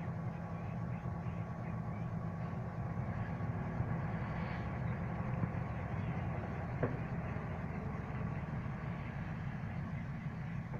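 Heavy diesel engine running steadily at a constant note, with a single faint knock about seven seconds in.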